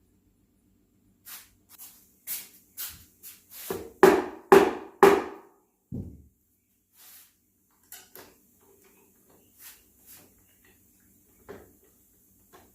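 Sharp wooden knocks on a solid maple chair seat as its freshly CA-glued joint is worked together, about two a second, building to four loud knocks about four to five seconds in, then a single dull thump and a few lighter clicks.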